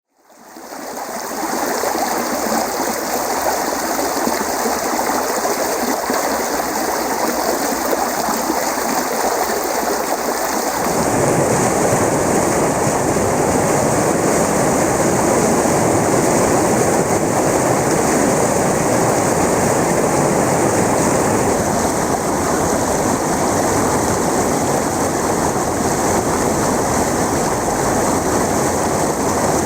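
Water stream flowing: a steady rush of running water that fades in over the first second. About eleven seconds in it changes to a fuller, deeper-sounding flow.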